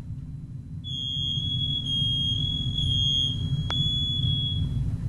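Interconnected smoke alarms sounding their high-pitched piezo alarm tone in test mode, starting about a second in and stopping just before the end, over a low steady hum. A single click comes about two-thirds of the way through.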